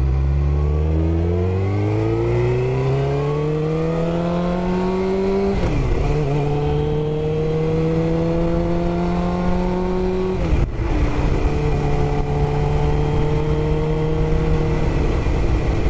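2002 Suzuki GSX-R750's inline-four engine accelerating through the gears. It revs up steadily, drops in pitch at an upshift about six seconds in, climbs again, upshifts once more near eleven seconds, then holds a nearly steady cruise.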